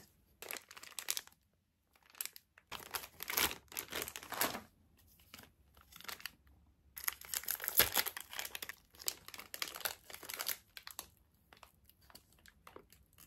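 Candy wrappers crinkling and being torn open, in irregular bursts with short pauses.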